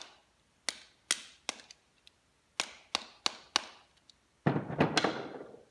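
Sharp taps on a 1/2 inch socket driving the router chuck out of its seized bottom bearing: seven strikes in two quick runs, then a louder rattling clatter lasting about a second near the end.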